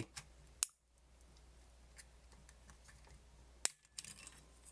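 A few sharp clicks of small plastic parts being handled as a camcorder is taken apart, with two louder snaps about half a second and three and a half seconds in.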